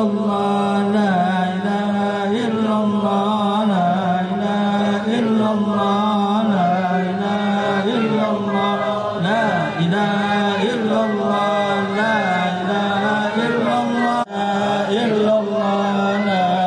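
A roomful of men chanting Arabic dhikr together in unison, many voices held on one steady low pitch. There is a brief break for breath about fourteen seconds in.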